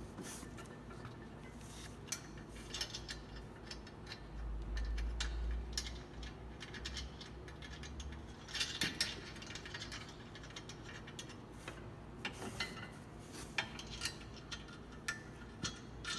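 Scattered metallic clicks and clinks of hardware being handled and fastened, flange nuts going onto carriage bolts, with a low rumble in the middle.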